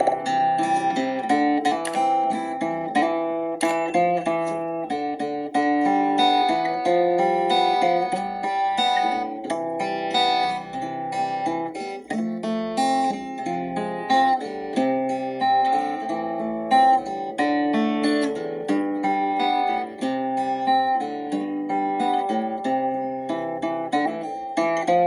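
Instrumental worship music: a plucked guitar picking a continuous run of single notes and chords.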